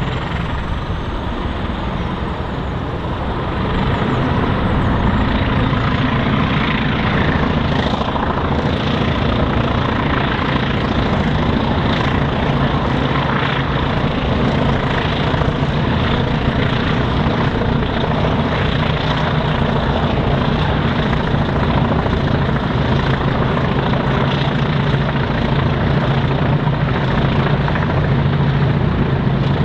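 Diesel locomotive engine working hard under power, a loud steady engine sound that grows louder about four seconds in.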